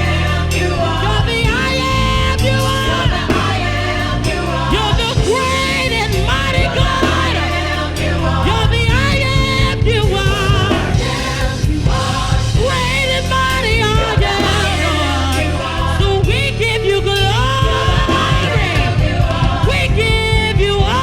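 Worship band playing live in a gospel style, with voices holding and sliding between notes over full band accompaniment and a steady bass.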